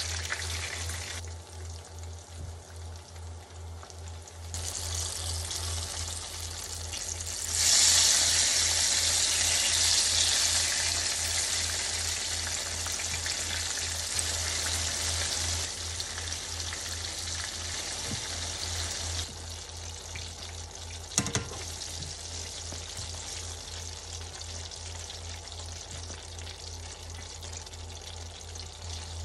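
Eggplant pieces dusted in potato starch deep-frying in a pan of oil, sizzling. The sizzle grows much louder about a quarter of the way in and eases off after the middle, with a single sharp tap about three-quarters through.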